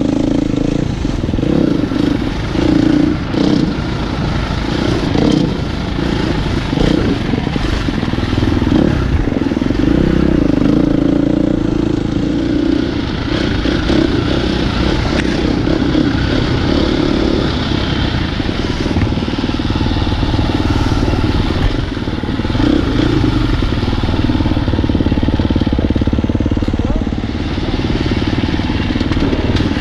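Dirt bike engine running on the trail, revs rising and falling with the throttle.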